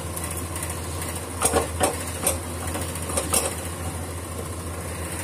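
A few light clinks and knocks of steel cookware and a kadhai being handled on a gas stove, about a second and a half in and again around three seconds, over a steady low hum.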